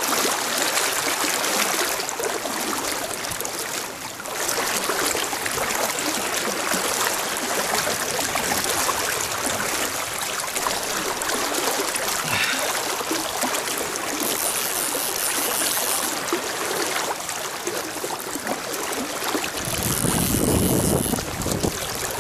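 Steady rush of river water, an even hiss with no rhythm. Near the end, wind buffets the microphone with a low rumble.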